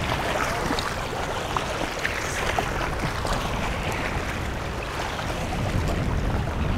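Steady sea noise from an open boat on choppy water: waves lapping and splashing against the hull, with wind rumbling on the microphone.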